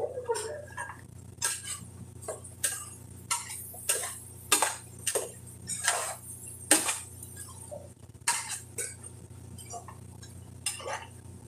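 A metal spoon clinking and scraping against the inside and rim of a metal cooking pot, in irregular sharp taps about two a second, over a steady low hum.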